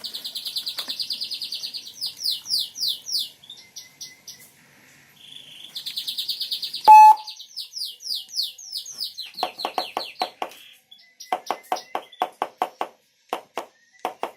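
Senken CJB100BD electronic siren module cycling through its tones: a high-pitched rapid warble and fast falling chirps repeated several times a second, a short loud tone about seven seconds in, then a rapid pulsing tone from about nine and a half seconds.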